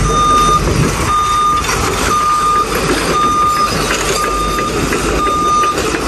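JCB backhoe loader on the move, its diesel engine running under a reversing alarm that beeps six times at one steady pitch, about once a second.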